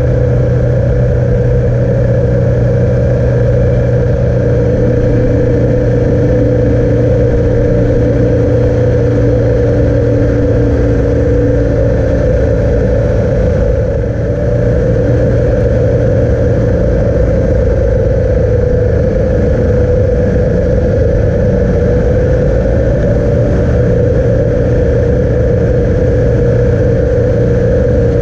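A motor vehicle running at a steady speed: a constant engine hum that holds one pitch.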